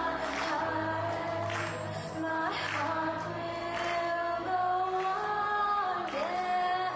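A young woman singing solo into a handheld microphone, holding long notes that slide between pitches. A low, steady accompaniment sits beneath her voice.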